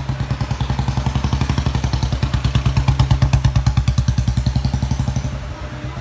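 Motorcycle engine idling close by: a steady, even putter of about seven or eight beats a second. It grows louder from about a second in and drops back a little after five seconds.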